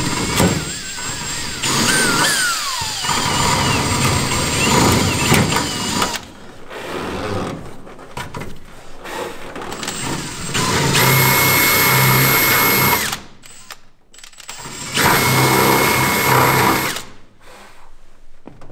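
Cordless drill boring through a carbon-fibre panel. The motor labours with a wavering pitch for the first several seconds, then comes two runs of about two seconds each at a steady high whine.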